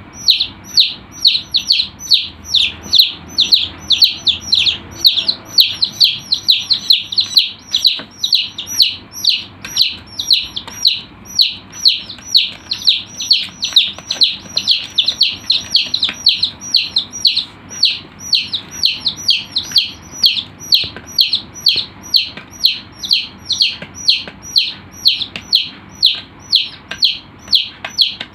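Chicks peeping: an unbroken stream of loud, short peeps, each falling in pitch, about three a second.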